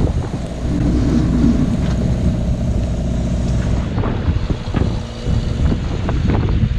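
Strong wind buffeting the microphone over the rush of breaking waves against a sailboat in a rough sea: a loud, dense low rumble.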